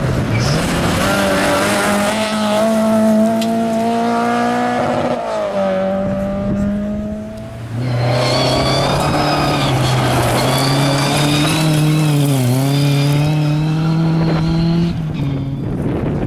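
Rally car engines at full throttle on a gravel stage. First a Citroën Saxo's engine pulls hard with the revs climbing and takes one upshift about five seconds in. Then a second car's engine climbs again, with a brief dip in revs near the middle, and stops shortly before the end.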